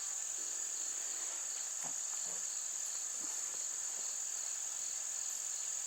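Steady, high-pitched chorus of singing insects, an unbroken shrill drone.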